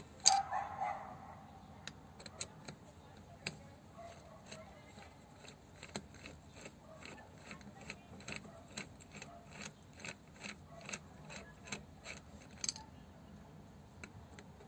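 Metal clinks and ticks of tools and parts while a power steering pump is taken apart: one loud ringing metal clink just after the start, then a run of light clicks at about two a second.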